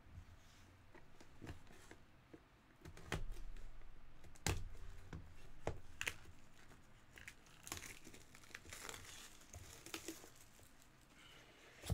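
Plastic shrink wrap being torn and crumpled off a sealed trading-card box: sharp crackles and rips starting about three seconds in, denser crackling in the second half.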